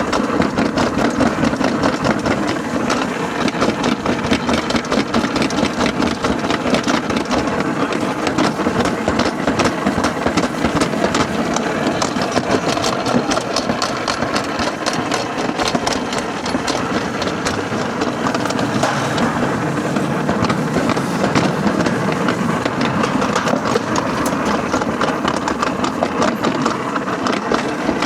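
Toboggan sled's wheels rolling along the metal track: a steady rumbling rattle with a fast, continuous clatter of small clicks.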